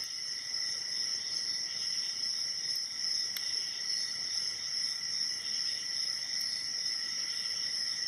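A steady high-pitched whine or chirring of several even tones, with a few faint clicks as a pick and tension wrench work the pins of an Abus 72/40 padlock.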